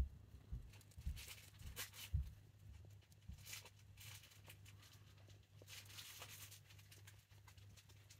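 Faint rustling and scratching of a Russian dwarf hamster scurrying through wood-shaving bedding and fluffy nesting material, with a few soft thumps in the first couple of seconds.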